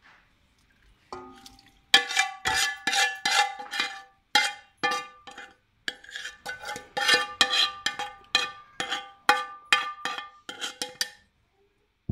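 A spoon scraping and knocking against the inside of a metal bowl as marinade is scooped out, the bowl ringing after each stroke. There are many quick strokes in two runs, starting about two seconds in, with a short pause in the middle.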